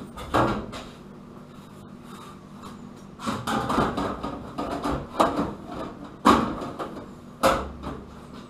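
Scraping and knocking as a black arch-shaped piece is handled and pressed against a car's rear wheel arch to check the fit of the repaired arch lip. Several sharp knocks, the loudest about six and seven and a half seconds in.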